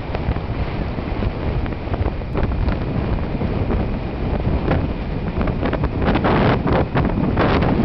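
Strong hurricane wind buffeting the camera microphone in gusts, over the steady rush of heavy storm surf breaking on the beach. The buffeting grows louder about six seconds in.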